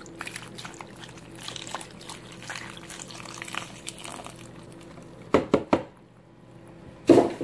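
Chicken broth being poured into the Instant Pot's inner pot over the greens, a steady splashing trickle that stops about four and a half seconds in. A few sharp knocks follow, then a louder clunk near the end.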